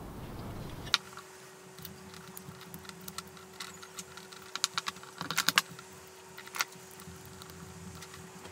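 Black electrical tape being pulled off its roll and wrapped around a crocodile clip's wire joint: an irregular run of small crackling clicks, busiest just past the middle, over a faint steady hum.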